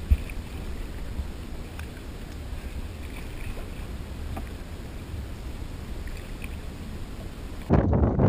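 Canoes paddled on a lake: soft water sounds and a few light knocks over a steady low wind rumble on the microphone, with one sharp knock right at the start. Near the end it switches abruptly to a much louder rush of wind and water.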